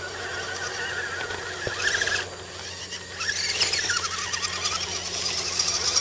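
Whine of radio-controlled scale crawler trucks' electric motors and gearboxes, the pitch wavering up and down with the throttle. It drops away for about a second a little past two seconds in, then comes back louder as a truck crawls right past.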